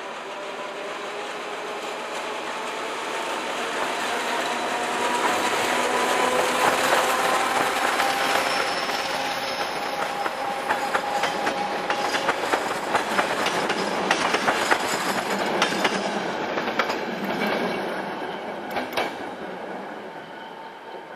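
ČD class 754 diesel-electric locomotive approaching and passing with its engine running, a steady engine tone growing louder. Its train of coaches follows, wheels clicking over the rail joints for several seconds, then fading as the train moves off.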